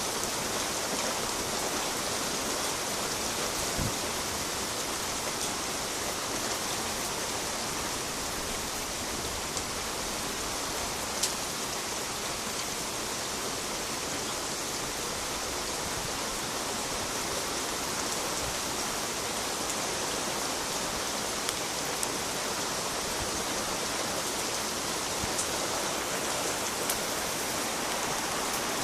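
Steady rain falling during a thunderstorm, with a few sharp ticks of drops striking something hard.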